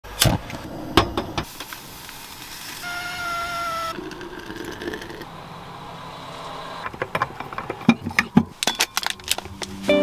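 A run of close-up kitchen sounds: a few sharp clicks of a lighter at a gas hob burner near the start, a brief steady whistling tone, a soft pour of milk into a flask, then a quick string of clicks and taps near the end.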